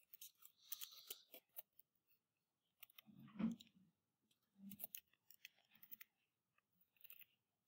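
Faint, irregular clicking of computer keyboard keys being typed, with a brief low murmur of voice about three and a half seconds in and again nearly five seconds in.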